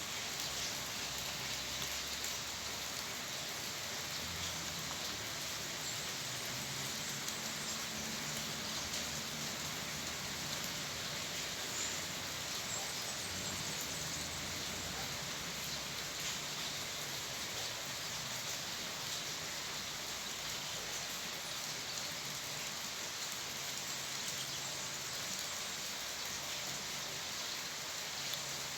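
Steady rain falling, with no thunder: an even hiss with a fine patter of drops.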